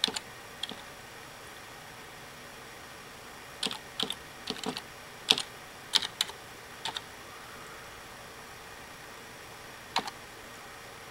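Computer keyboard keys being pressed one at a time in slow, uneven typing. A few keystrokes come near the start, a run of about eight follows in the middle, and a single press comes near the end.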